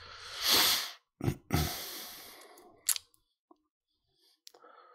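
A breath close to a desk microphone, swelling and fading in the first second, then two soft knocks with trailing noise and a single sharp click, like a mouse click, near the middle.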